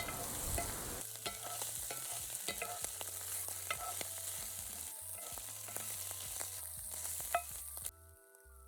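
Spiced oysters sizzling in hot coconut oil in a cast iron pan, with short clicks and scrapes of a utensil stirring them. About eight seconds in the sizzle cuts off and faint music starts.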